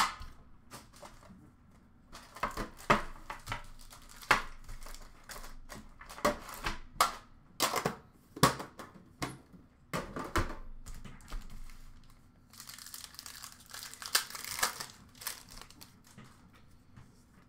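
Trading card pack wrappers crinkling and tearing as packs are opened, with sharp clicks and taps from a metal card tin and cards being handled. A longer stretch of crinkling comes about two-thirds of the way through.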